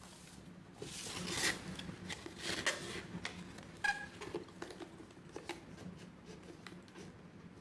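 Kitchen utensils and containers being handled: two brief rustling scrapes, a short blip, and scattered light clicks.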